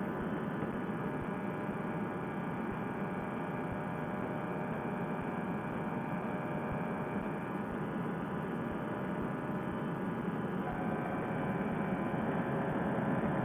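Fresh Breeze Monster paramotor engine and propeller running steadily in cruise flight, a constant hum with a fixed pitch that gets a little louder near the end.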